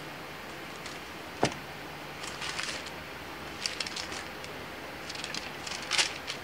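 Thin onionskin pages of a journal being turned and smoothed down, crisp paper rustles in several short bursts, after a single knock about a second and a half in.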